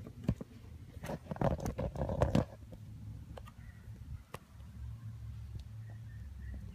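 Handling noise from hands and tools working around a car's engine bay: scattered clicks and knocks, with a burst of rustling and clattering from about one to two and a half seconds in, over a steady low hum.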